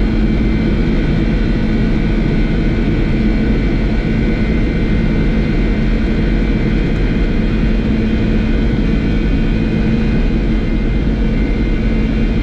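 Boeing 747-400 on its takeoff roll at takeoff thrust, heard inside the flight deck: a steady, loud engine noise with a few constant tones running through it as the jet accelerates toward V1.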